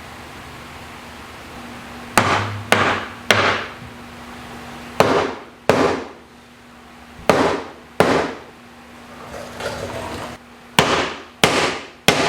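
About ten sharp hammer blows in a woodshop, coming in loose pairs from about two seconds in, each followed by a short ringing decay.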